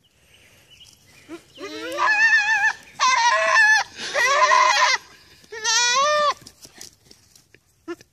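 Goat bleating: four loud, quavering bleats, each lasting under a second, the last one about six seconds in.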